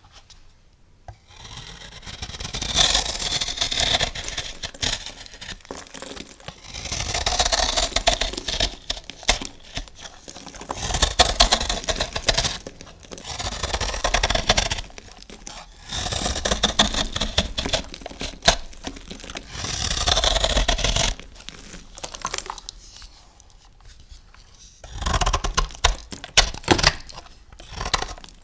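A blade cutting and scraping through a bar of soap in slow strokes, about six drawn-out rasping passes a few seconds apart. After a short pause, a quick run of crisp crackles and snaps near the end.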